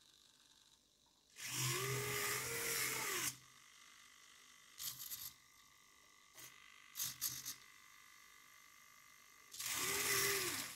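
SG90 micro servos in a small plastic robot arm whirring through their gearing as the arm moves, with a motor whine that rises and then falls in pitch on each move. There are two longer moves, one about a second and a half in and one near the end, with a few short servo twitches between them. A faint steady high whine continues in the pauses.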